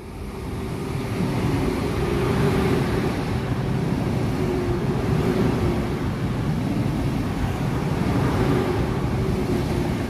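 Frecciarossa 1000 (ETR 400) high-speed electric train running through the station alongside the platform. It grows louder over the first second or two as it draws level, then holds a steady loud rush with a wavering hum.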